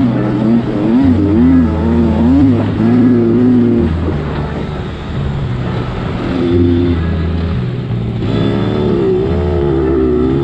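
Kawasaki KX85's single-cylinder two-stroke engine under way, its revs rising and falling again and again as the throttle is worked.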